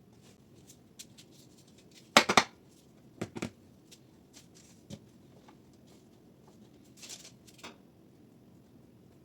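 Kitchen handling noises: a loud cluster of sharp knocks about two seconds in, a quieter pair a second later, a single knock, then a short scrape or rustle near the end, with light clicks between.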